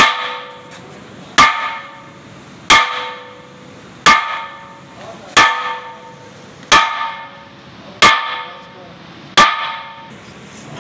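Heavy metal-on-metal strikes on the spoked flywheel of an ammonia refrigeration compressor, eight evenly spaced blows about 1.3 seconds apart. Each blow rings with a clear metallic tone that fades within about half a second. The wheel is being knocked loose so it can be pulled off the compressor shaft.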